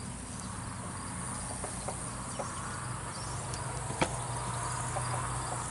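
Chickens clucking softly in a few short, faint calls over a steady high buzz of crickets and other insects, with a single brief click about four seconds in.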